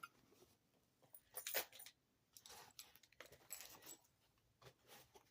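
Faint handling sounds of small items being packed into a handbag: a few light clicks and rustles, the most distinct about one and a half seconds in.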